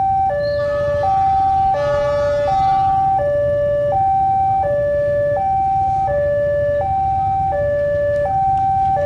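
Electronic level-crossing warning alarm sounding its steady two-tone call, alternating a higher and a lower tone about every 0.7 seconds, over a low rumble.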